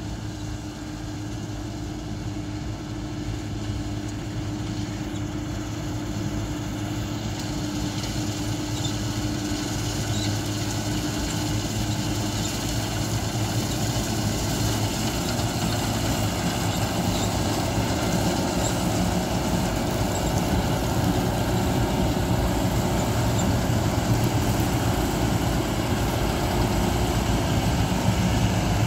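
New Holland TC5050 combine harvester's engine running steadily, growing gradually louder.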